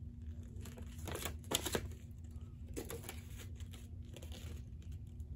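Paper instruction leaflet rustling and crinkling as it is unfolded and handled, in a few spells, the loudest about a second and a half in, over a steady low hum.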